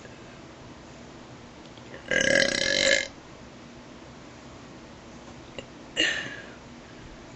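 A person burping twice: one long burp lasting about a second, then a short one a few seconds later.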